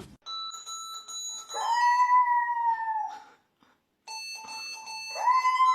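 A dog howling twice: each long howl swoops up quickly and then sinks slowly. Behind it a steady, held high tone, like an instrument note or an alarm, sounds before each howl.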